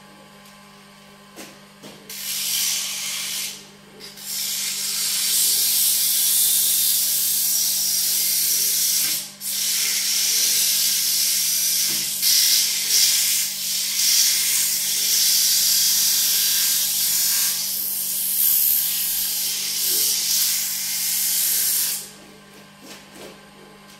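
Wood lathe running with a steady hum while a turning tool or sandpaper works against the spinning walnut plate blank. This gives a loud hiss from about two seconds in until near the end, broken by two short pauses.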